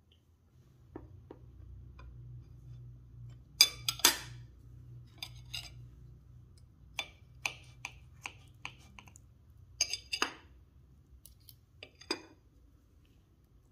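Cutlery and dishes clinking: a scattering of sharp clinks with short ringing, the loudest a pair about four seconds in, over a faint steady low hum.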